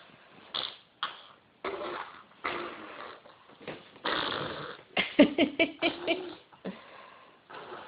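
A baby's breathy huffing and grunting, with a quick run of short voiced grunts about five seconds in.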